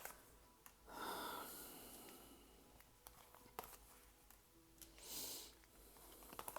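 Near silence in a small room, with a soft breath about a second in, a shorter faint hiss near the end and a few faint clicks.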